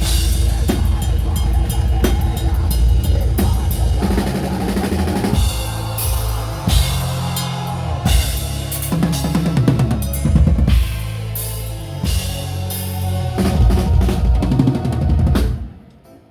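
A live band plays loud, heavy metal with pounding bass drum and snare over a thick low bass line, then stops abruptly near the end.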